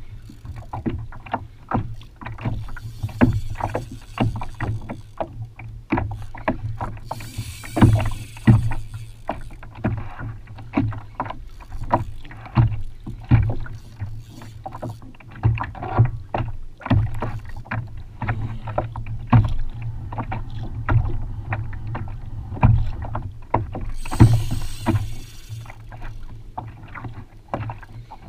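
Water slapping and knocking against a kayak's hull in small chop: irregular knocks about a second apart, with a few longer rushes of hiss.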